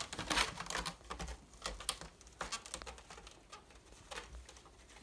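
A cat's claws scrabbling and scratching on a sisal-rope scratching post and fabric-covered platform as it spins after its tail: irregular scratches and taps, busiest in the first second.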